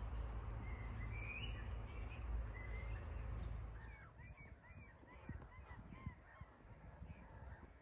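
Waterfowl on a pond giving a quick run of short, repeated honking calls from about halfway through. Before that there is a low rumble with a few small bird chirps.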